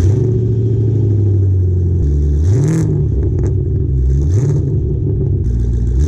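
Car engine running just after starting, revved briefly three times, its pitch rising and falling back to a steady idle each time.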